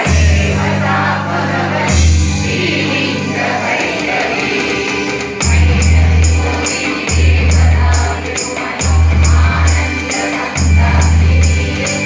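A group of voices singing a devotional song together, over a deep pulsing bass. A regular percussive beat of about two strokes a second joins about five seconds in.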